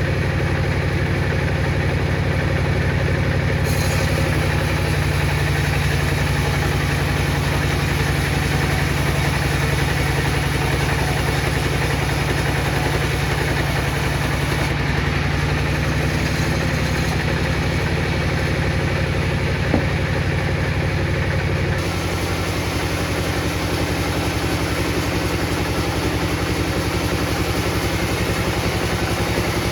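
A machine running steadily with a low, even hum, its tone shifting slightly about 4 seconds in and again past the middle.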